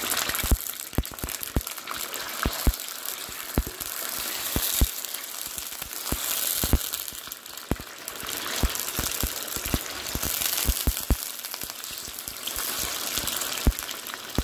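Raw chicken pieces frying in hot oil in a karahi on a high flame: a steady sizzle with many sharp, irregular pops and crackles.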